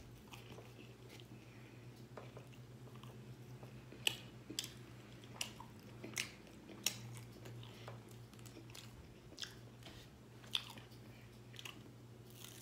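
A person chewing food close to the microphone, with a handful of sharp wet mouth smacks and clicks scattered through, over a faint steady low hum.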